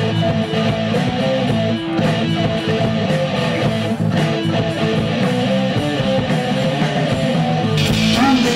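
A rock band playing live without vocals: strummed electric guitars over bass guitar. The sound gets brighter near the end.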